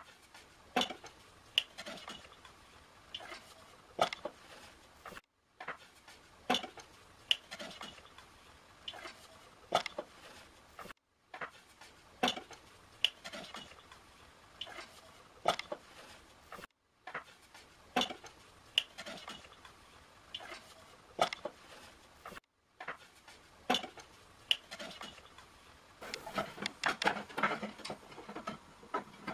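Oak barrel staves clattering and knocking against one another and the metal raising hoop as they are stood up one by one. There are sharp wooden knocks a few times a second, with a brief break about every six seconds, and the knocks come thicker near the end.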